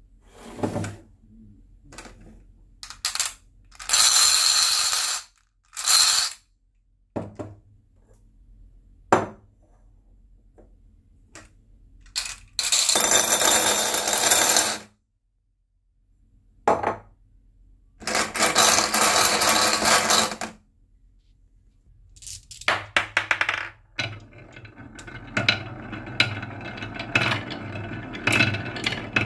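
Glass marbles clattering as they are poured from one bowl into another, in several bursts of a second or two with single clicks between. Near the end, marbles roll and rattle continuously along a wavy-grooved wooden marble-run track.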